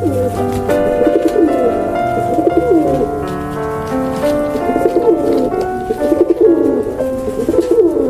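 Low, warbling bird calls repeated about once a second, with a short gap midway, over background music with steady sustained notes.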